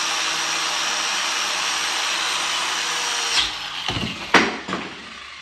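Angle grinder with a wire-brush wheel running steadily against a steel leaf spring. A little over three seconds in the wheel catches, giving a few sharp knocks, the loudest about four and a half seconds in. The motor then winds down and fades.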